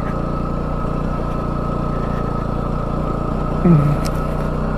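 Bajaj Pulsar NS200's single-cylinder engine running steadily at an even pitch while riding.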